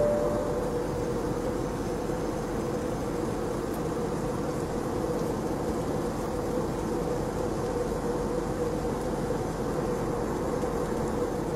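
Steady airliner cabin noise: a constant rushing drone with a steady hum running under it. A short tone sounds right at the start.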